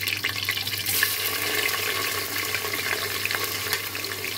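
Hot oil in a pressure cooker sizzling steadily, with whole spices (cumin, cloves, cardamom, peppercorns) crackling in it. Sliced onions are tipped into the oil near the end.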